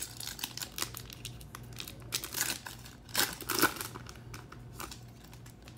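Foil wrapper of a Topps Chrome trading-card pack being torn open and crinkled as the stack of cards is pulled out. A dense run of crackling and rustling, loudest in two spells a little past the middle, dying away near the end.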